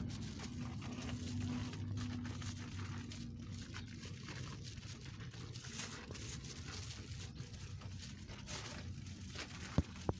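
Crinkling and rustling handling noise with scattered light clicks over a steady low hum, and a sharp click near the end.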